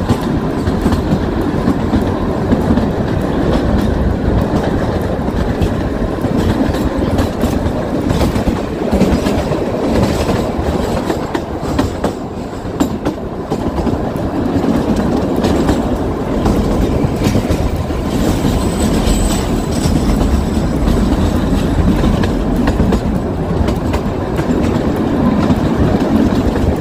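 Kalka–Shimla narrow-gauge toy train running, with a steady rumble and the clickety-clack of its wheels over the rail joints.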